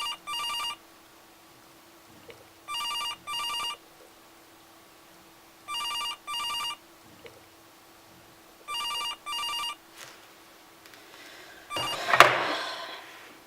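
Telephone ringing in the British double-ring pattern, four double rings about three seconds apart, then a clatter about twelve seconds in as the receiver is picked up.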